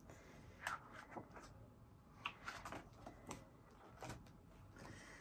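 Faint handling sounds of a hardback picture book being opened: a few soft taps and rustles of the cover and pages.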